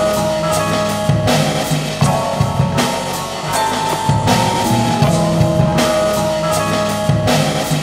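Instrumental experimental hip hop track made on a sampler and drum machine: a steady beat of kick and snare hits under held tones and a moving bass line.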